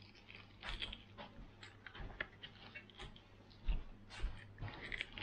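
A person biting and chewing meat off a fried lamb chop bone: irregular small clicks and smacks of eating, with a few soft low bumps, the loudest a little past halfway.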